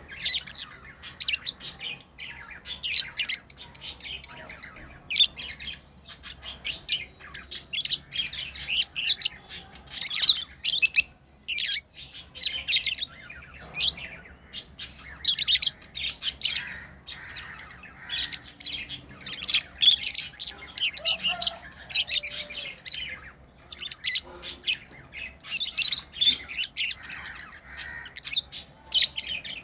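Pet lovebirds chirping, a dense stream of rapid, high-pitched calls with hardly a pause.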